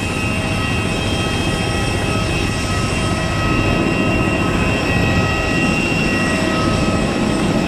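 Steady jet aircraft noise: a loud, even rushing noise with several high steady whining tones.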